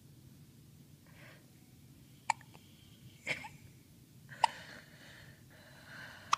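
Newborn baby hiccuping: short sharp hiccups about every two seconds, three in all, with softer breathy sounds between.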